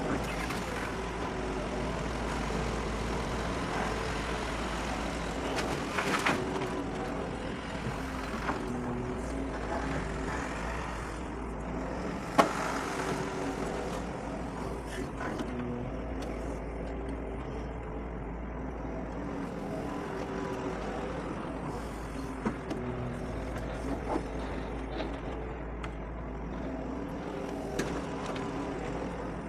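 Doosan DX140 excavator's diesel engine running steadily under working load, its note rising and falling a little, with scattered knocks; the loudest comes about twelve seconds in.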